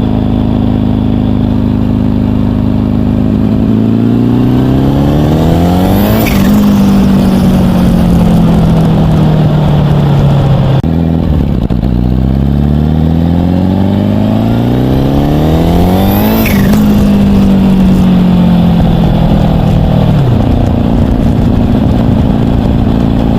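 Turbocharged Bandit engine pulling twice on light throttle, its revs climbing with a rising turbo whistle. Each pull ends with a brief turbo flutter as the throttle is lifted, and the revs fall away.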